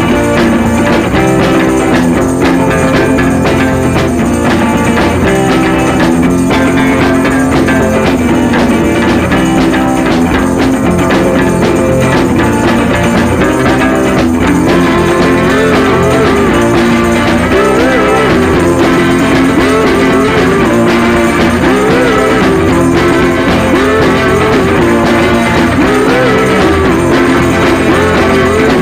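Background rock music with guitar, playing steadily, and a wavering melody line that stands out from about halfway through.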